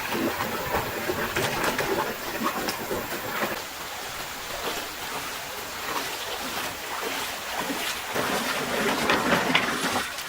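Stream water running steadily, with a few light knocks scattered through, more of them near the end.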